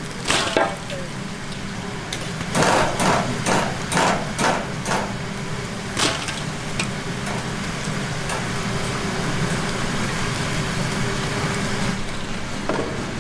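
Knocks and clatter of metal utensils against a stainless steel bowl of fried chicken pieces, as a wire skimmer is worked through them, with a quick run of knocks a few seconds in. Under it runs a steady mechanical hum.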